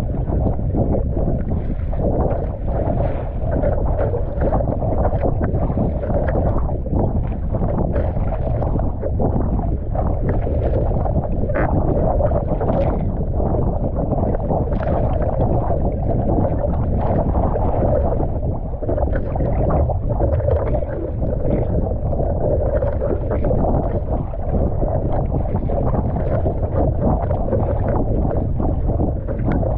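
Surfski hull pushing through choppy, wind-blown sea, with water rushing and slapping along the boat and irregular splashes from the paddle strokes. Crosswind buffets the deck-mounted microphone, a low rumble beneath the water noise.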